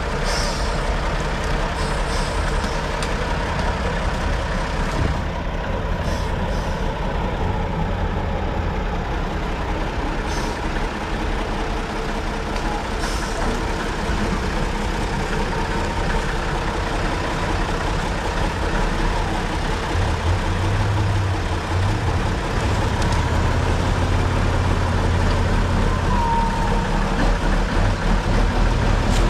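Praga V3S trial truck's diesel engine running under load as the truck crawls over rough, muddy ground, the engine note growing deeper and louder about two-thirds of the way through.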